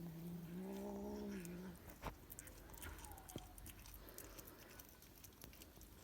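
A cat's low, drawn-out growl lasting about two seconds, the warning growl of a cat guarding a chunk of meat, followed by a single sharp click and faint small noises.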